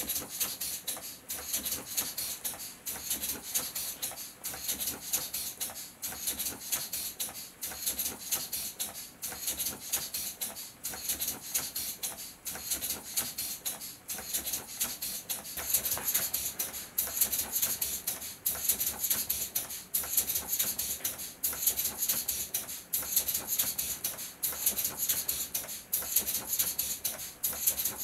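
LEGO Technic six-cylinder radial engine running on nitrogen gas from boiling liquid nitrogen: a rhythmic hiss of gas puffing out of the pneumatic cylinders with clicking from the plastic parts, steady throughout.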